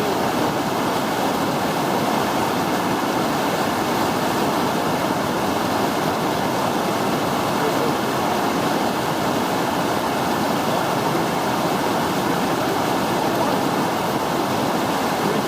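Whitewater river rapids rushing: a steady, unbroken wash of water noise.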